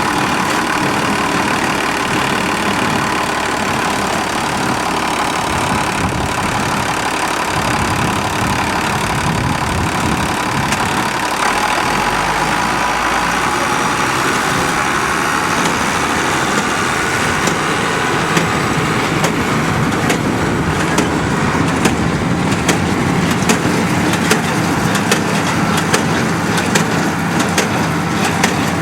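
Tractor engine running steadily with the hay baler working behind it. Sharp clicks and knocks become frequent about two-thirds of the way through.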